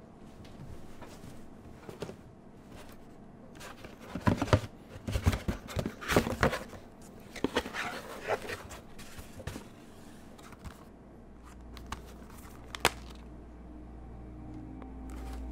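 A cardboard package being handled and torn open, with bursts of rustling and tearing, followed by a couple of sharp clicks as a plastic DVD case is opened. A low drone fades in near the end.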